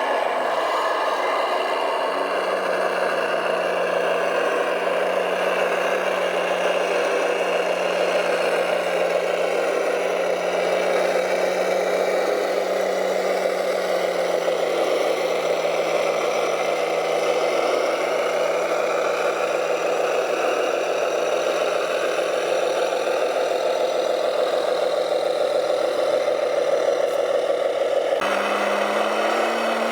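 A radio-controlled truck running steadily with an engine-like drone: a low held tone whose pitch wavers a little, under a rougher mid-range noise. The sound changes suddenly near the end.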